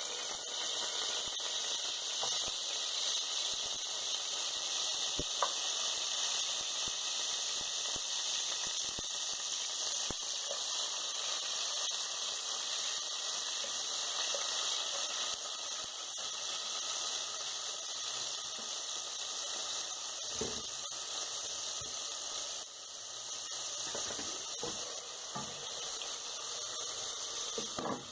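Oil and butter sizzling steadily in a steel pot as whole spices, garlic and ginger fry. Later on, a wooden spoon stirring knocks against the pot.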